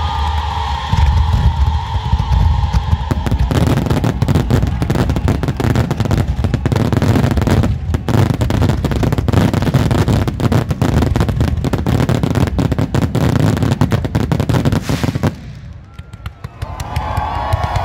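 Fireworks barrage: a dense, fast string of bangs and crackles for about twelve seconds, starting a few seconds in over music. The barrage stops suddenly near the end and the music carries on.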